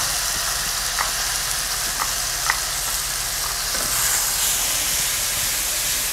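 Tomato paste sizzling steadily in hot oil with onions, ginger and garlic in a nonstick wok as it is stirred with a spatula, which taps the pan a few times, about one, two and two and a half seconds in.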